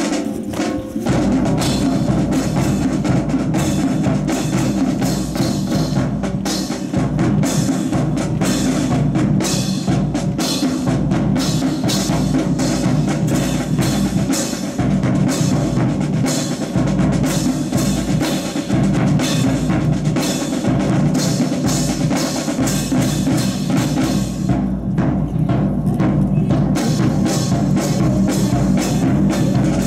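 Drum-led music with bass drum and snare, starting suddenly and playing loudly with a steady beat, as accompaniment to a marching rifle drill.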